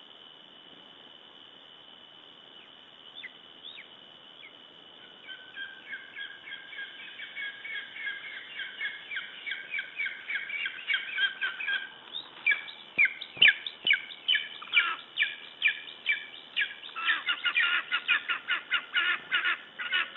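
An animal's rapid series of short, high-pitched calls, a few a second, made while holding prey. The calls start sparsely, grow louder and quicker, and stop abruptly near the end.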